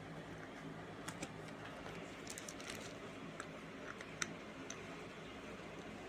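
Faint crinkling and scattered clicks of a clear plastic packaging bag being handled around a TV antenna and its cable, over a low steady hum. The clicks cluster around the first half and a sharper one comes just past the middle.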